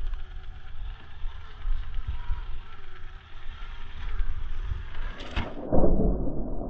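RC rock crawler's small electric motor and drivetrain running as it crawls over granite, with a faint wavering whine over a low rumble. A little after five seconds in comes a sharp scraping clatter as the truck tips nose-first into a crack in the rock. The noise then carries on slowed down, deep and muffled.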